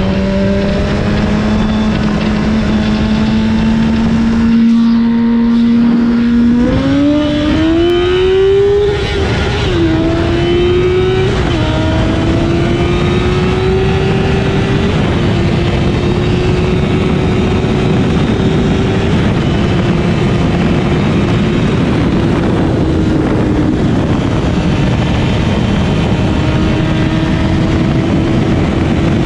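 Honda CBR1000RR inline-four sport-bike engine running at high revs, heard on board under a loud rush of wind. About seven seconds in the revs climb hard under acceleration. The pitch drops back twice, at quick upshifts around nine and eleven seconds in, then holds high and steady at speed.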